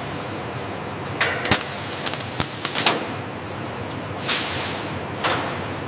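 Four short bursts of compressed-air hiss, about a second or so apart, over a steady background of factory noise.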